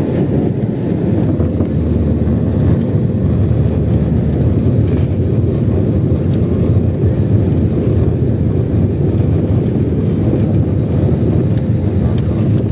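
Airliner cabin noise heard from a window seat: a steady, loud low rumble of the engines and wheels as the plane rolls along the ground after landing, with a faint steady hum.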